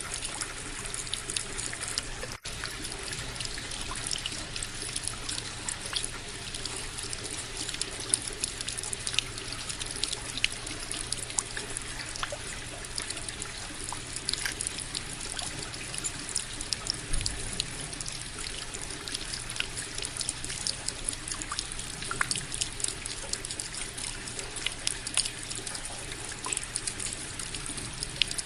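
Small indoor tabletop waterfall fountain, its water trickling and splashing steadily, with many small drips and splashes.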